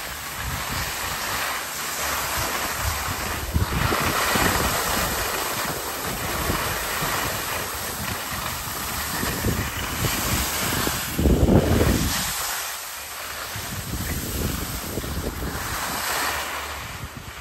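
Wind rushing over the microphone of a moving skier, with a gusty low rumble, over the steady hiss of skis sliding on groomed snow. A strong gust rumbles about eleven seconds in.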